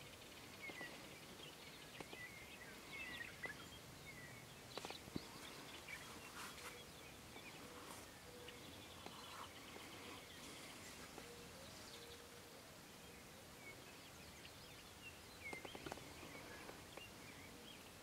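Quiet open-country ambience with faint, scattered chirps of small songbirds, a few soft clicks and a faint steady hum through the middle.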